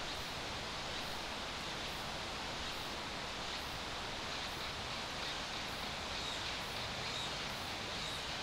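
Steady outdoor forest ambience: an even hiss, with a faint high chirp repeating about every three-quarters of a second.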